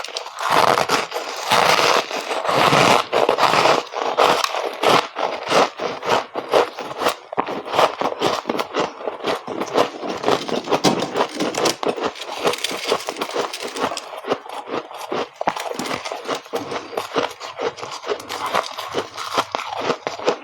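Freezer frost being chewed close to the microphone: a dense run of crisp crunches and crackles, heaviest in the first few seconds and then quicker, lighter crackling.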